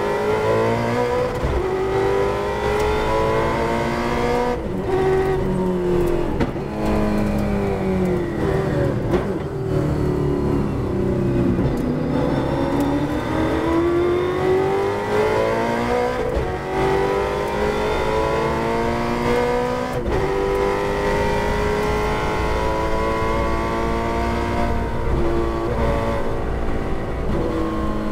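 Holden Torana touring car's V8 engine, heard from inside the car under race load. The pitch falls as the car brakes and slows for a corner, then climbs hard with upshifts about 16, 20 and 25 seconds in as it accelerates.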